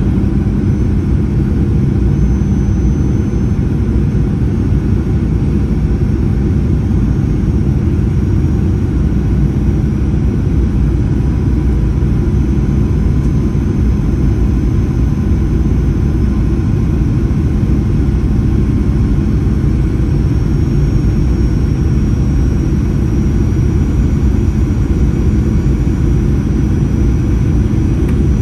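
Steady low cabin rumble of a Boeing 737-800, engine and airflow noise heard from a window seat inside the cabin, with a faint high whine above it.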